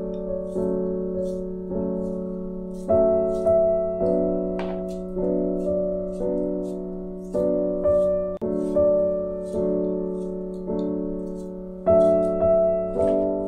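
Background music: slow keyboard chords, each struck and then fading, about once a second.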